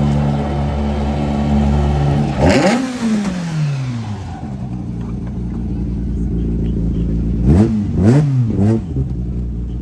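Renault Twingo rallycross car's engine idling at walking pace, with a sharp throttle blip about two and a half seconds in and three quick blips near the end.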